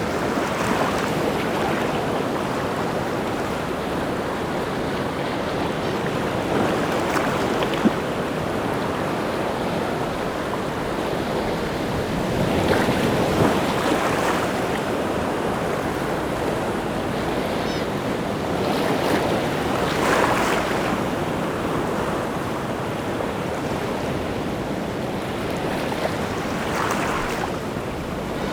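Rough sea surf: waves break and wash in continuously, with a heavier wave crashing about every six seconds, five times in all.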